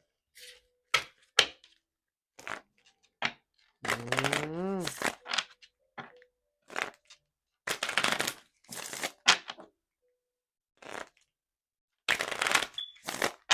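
A deck of angel oracle cards being shuffled and handled by hand: short bursts of card rustling and riffling with silent gaps between. About four seconds in comes a brief pitched voice sound that rises in pitch.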